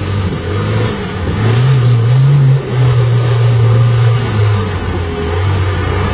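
A small off-road 4x4's engine, a Lada Niva, working hard in low gear as it climbs a rocky dirt track. The revs rise about a second and a half in, hold, and then ease back.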